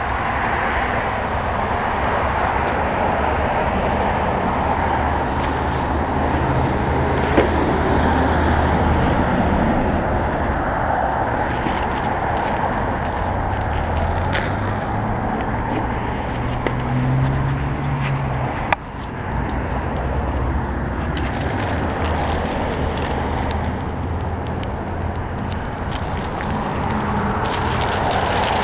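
Steady street traffic noise from cars passing on the road. About halfway through, a bike chain lock rattles as it is handled, and a sharp click comes a few seconds later.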